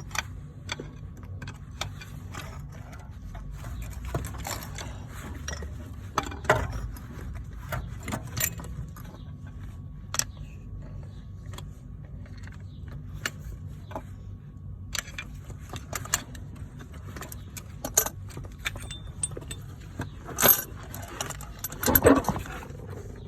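Irregular metallic clinks and knocks of hand tools working on a van's rear brake caliper, with the loudest knocks scattered through, over a steady low hum.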